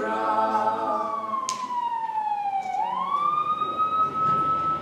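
Siren wailing: one steady tone that falls slowly in pitch, swoops back up and holds high, then begins to fall again. Choir singing fades out in the first second, and there is a single sharp click about a second and a half in.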